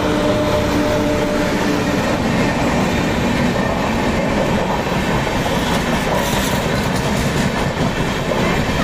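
Express train of LHB coaches, hauled by a WAP-7 electric locomotive, passing close by at speed. The wheels make a steady roar on the rails. The tail of the locomotive's horn dies away in the first two seconds.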